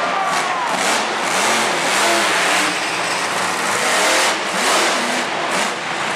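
Monster truck engine revving hard, its pitch climbing and dropping in repeated surges as the truck is driven around a dirt arena track, over a roar of arena noise.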